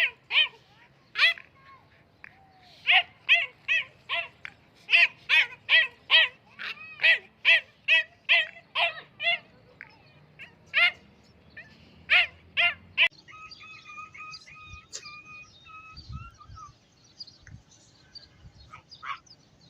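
A small dog yapping in quick high-pitched barks, about two a second, with a short pause about ten seconds in. Around thirteen seconds in the barking stops, and a faint, thin warbling tone carries on for a few seconds.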